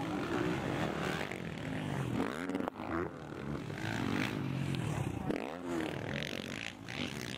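Motocross dirt bike engines running hard, their pitch climbing and falling with the throttle. The sound breaks off sharply for a moment about two and a half seconds in.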